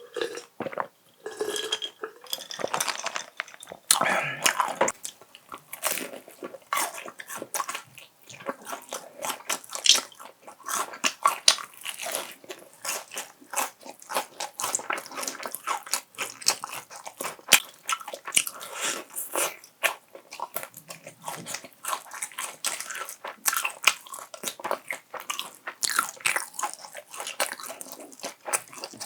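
Close-miked biting and chewing of crispy honey-glazed fried chicken: a dense, irregular run of crunches.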